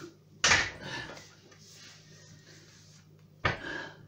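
Two heavy plate-loaded dumbbells, about 38 kg with the bars, set down one after the other on the floor, each with a sharp thud: one about half a second in, the other about three seconds later.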